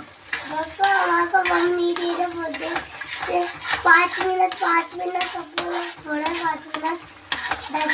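Steel slotted spatula stirring thick gravy in a steel kadhai, scraping and clinking against the pan again and again, with a squeaky pitched scrape now and then.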